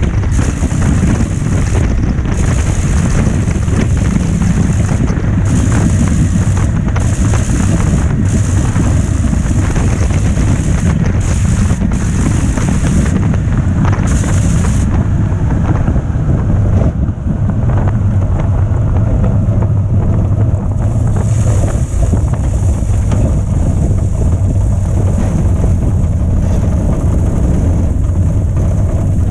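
Engine of a Blériot XI-2 monoplane running loud and steady under heavy wind rush on the onboard microphone, as the aircraft comes in low and rolls out on landing. About halfway through, the high hissing falls away.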